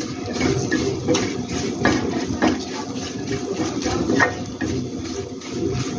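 Green chillies coated in gram flour and spices sizzling in oil in a black kadhai as they are stirred, with a spatula scraping and knocking against the pan several times.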